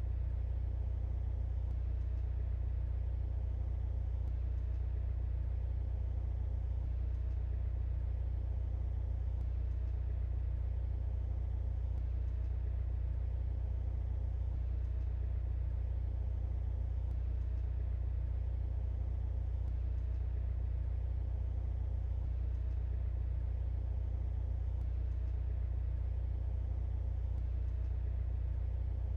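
A 2023 Mercedes-AMG C43 with its turbocharged four-cylinder engine, cruising at a steady speed. Its low drone holds even throughout, with no revving or gear changes.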